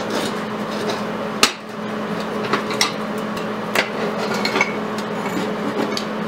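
Several sharp metallic taps and clinks, about a second apart, as small steel hand tools and locking pliers strike the tack-welded horseshoe and its steel base plate, over a steady low hum.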